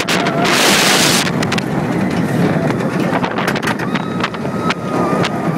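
Wind rushing over the microphone of a front-row rider on a steel roller coaster, with the train rumbling and rattling along the track at speed; a strong gust comes about half a second in.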